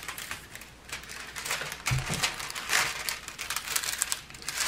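Clear plastic protective film on a diamond painting canvas crinkling irregularly under hands as it is pressed and smoothed flat to work out wrinkles, with a soft thump about two seconds in.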